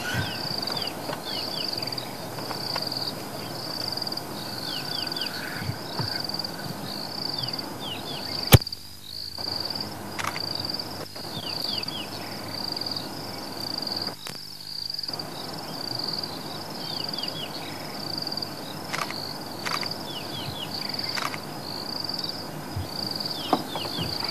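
Insects chirping in a steady, fast-pulsing high chorus, with groups of short falling chirps now and then and a single sharp click about eight and a half seconds in.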